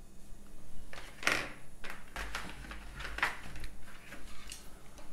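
Rustling and scraping of cardboard and plastic board-game pieces being handled by hand. There are two louder swishes, about a second and about three seconds in.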